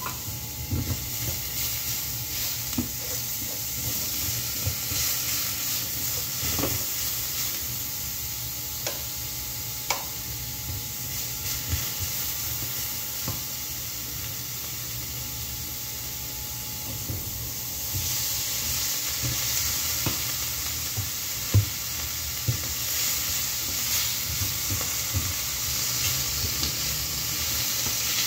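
Food sizzling steadily in a stainless steel frying pan, the sizzle growing louder about two-thirds of the way through, with scattered knocks and scrapes of a wooden spatula against the pan.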